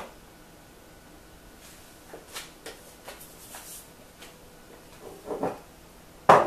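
Scattered light knocks and clicks of things being handled off-camera, ending with one louder sharp knock near the end.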